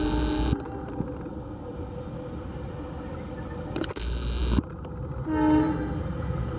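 A train horn sounds twice: one blast ends about half a second in and a second short blast comes near the end, over the steady running of a train. Two brief hissing bursts, at the start and about four seconds in, rise above the running noise.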